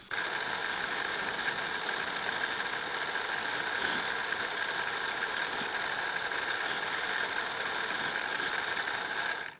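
Workshop machine tool running steadily with a constant whine, cutting in and stopping abruptly.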